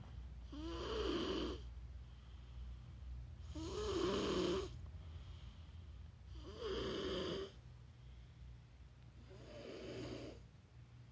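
Snoring in a slow, regular rhythm: four snores about three seconds apart, each lasting about a second, over a low steady hum.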